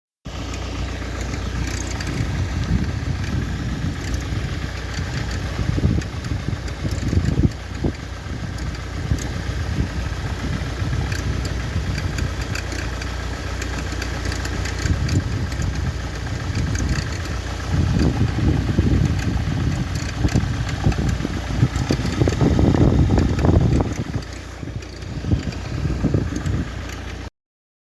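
2003 Ford Focus 1.8 TDCi four-cylinder turbodiesel (FFDA) running with a weird noise of unknown cause, with irregular light ticks throughout. The sound swells louder twice in the second half and cuts off suddenly just before the end.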